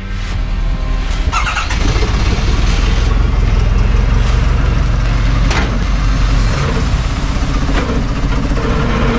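Truck engine running with a steady low rumble, with a few short rattles over it.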